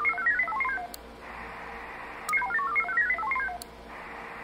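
VARA HF modem sending repeated connect requests: bursts of rapid stepping beeps about a second and a half long, one ending about a second in and another starting just past two seconds. Each burst ends with a faint click.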